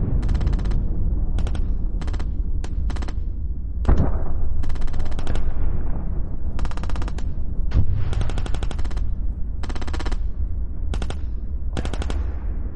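Repeated short bursts of rapid machine-gun fire, about a dozen volleys with a few heavier bangs among them, over a steady low rumble. It sounds like gunfire sound effects laid over kids' pretend gunplay.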